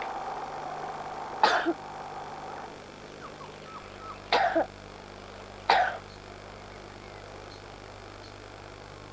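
A sick, feverish child coughing three times in short, harsh bursts: two about three seconds apart, then a third a second and a half later.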